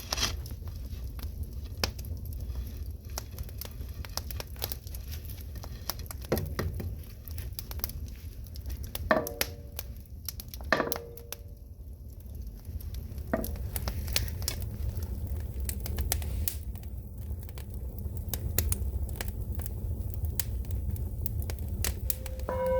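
Firewood burning in an agungi, a traditional Korean wood-fired firebox: a steady low rumble of the fire with constant crackling and small pops, and a few louder cracks about a third of the way through and around the middle.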